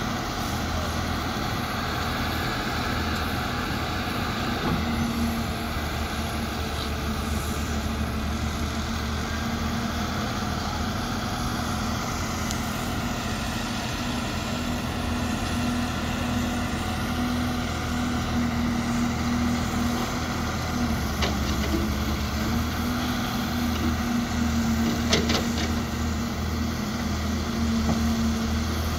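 Caterpillar crawler excavator's diesel engine running steadily under digging load, with a hum whose higher pitch drifts slightly up and down and a brief sharp click or clank near the end.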